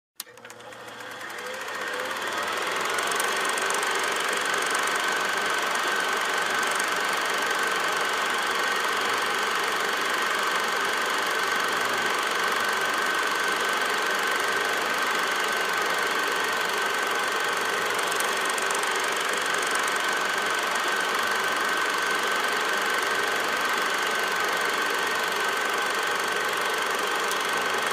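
8mm film projector running, a steady mechanical whir with a steady high-pitched whine. It fades in over the first couple of seconds and fades out near the end.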